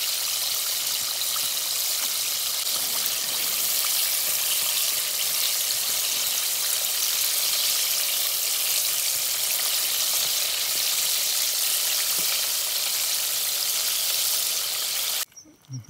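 Flour-and-cornflour-coated chicken pieces deep-frying in hot oil in a steel pot: a steady, loud sizzling and crackling that cuts off suddenly near the end.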